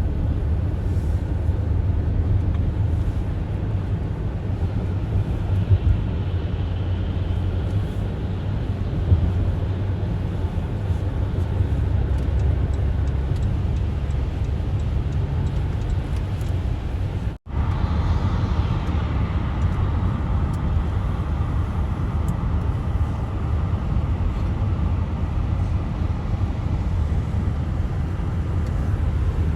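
Steady low rumble of a car driving on a snowy highway, its tyre and engine noise. The sound cuts out for a split second a little past halfway, then resumes unchanged.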